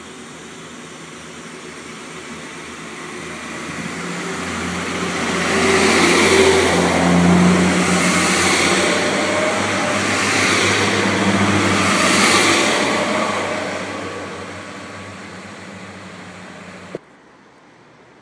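Pacer diesel multiple unit passing close by: its underfloor diesel engines running with a steady hum, getting louder as it draws alongside, with wheel clatter coming round four times as it goes by, then fading. The sound cuts off suddenly near the end.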